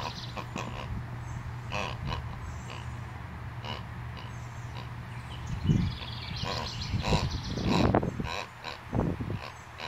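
A puppy grunting and growling in play as it chews a toy, in several short bouts in the second half, with scattered small clicks and rustles.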